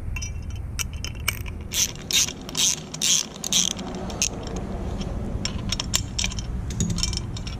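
Ratchet wrench clicking as a bolt is backed out, in several loud bursts of clicks with the handle's back-swings, then quicker, lighter clicking.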